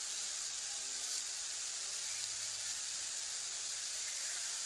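Steady hiss of background noise in a large hall, with faint distant voices briefly about a second in and again around two seconds in.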